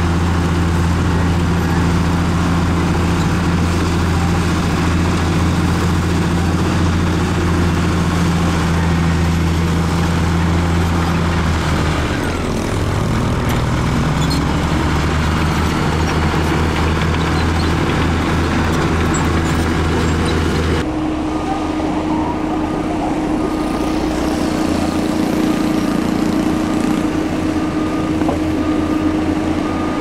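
Heavy diesel engine of a tipper dump truck running steadily at raised revs while its bed is tipped to unload dirt; a little over a third of the way through the engine note shifts, with a brief rising glide. About two-thirds of the way in the sound changes abruptly to another heavy diesel machine running steadily with a higher hum.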